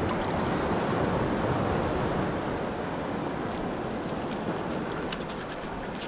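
Steady wash of waves at the shoreline. A few faint scraping clicks near the end as a knife cuts through the parrotfish's thick scales.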